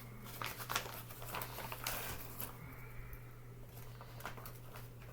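Scattered light knocks and rustles of hand handling, over a steady low hum.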